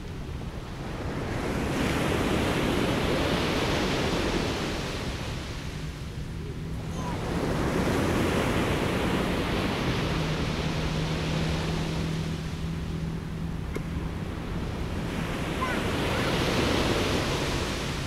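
Mediterranean sea surf breaking on a beach: three waves wash in, several seconds apart, each rising to a hiss and then drawing back.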